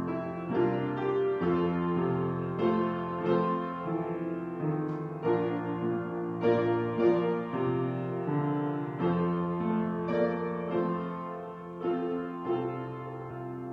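Piano playing slow, held chords, a new chord about every second.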